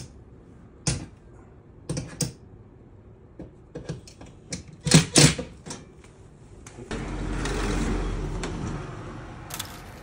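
Sharp metallic clicks and clacks from work with a cordless drill/driver on an air conditioner's metal wall mounting plate, including a loud double clack about halfway through. About seven seconds in, a steadier rushing noise with a low rumble swells for a couple of seconds and fades.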